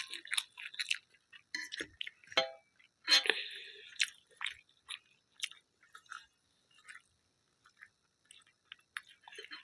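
Close-up chewing and mouth sounds of a person eating: a run of short clicks and smacks, sparser and fainter after about five seconds.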